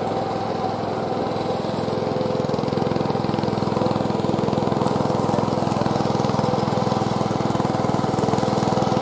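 Kubota B2441 compact tractor's three-cylinder diesel engine running steadily while the tractor works in deep mud, getting a little louder a few seconds in.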